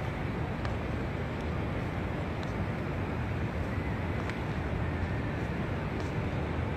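Steady low rumble of open-air background noise, with a few faint ticks scattered through it.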